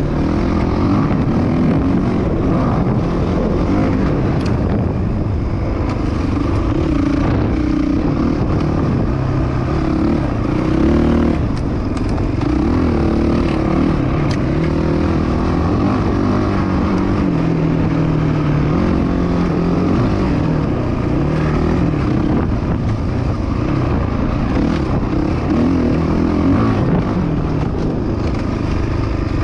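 Dirt bike engine running hard on a trail ride, its note rising and falling continually with the throttle and gear changes.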